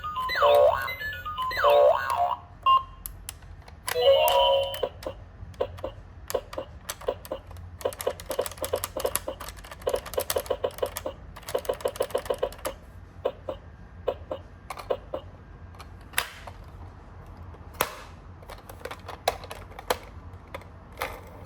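A toy ambulance's electronic siren sounds for about the first two seconds, with a short electronic tone burst a couple of seconds later. Then comes a long run of rapid light clicking and rattling from small plastic toy cars rolling on cardboard, thinning to scattered clicks and knocks.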